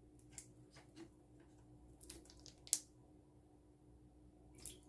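Faint, scattered clicks and taps of a spoon and containers being handled while anchovy fish sauce is measured out by the spoonful, with the sharpest tap a little before the middle.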